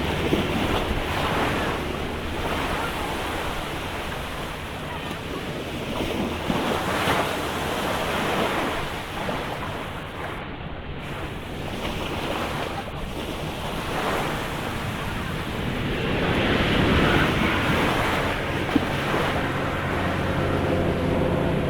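Sea waves breaking and washing up the shore, surging every few seconds, with wind buffeting the microphone. A steady low hum comes in near the end.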